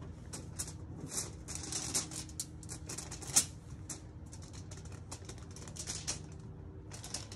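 Crumpled aluminium foil crinkling and crackling under hands as raw fish fillets are turned over on it, in irregular runs of short, crisp crackles with a brief pause past the middle.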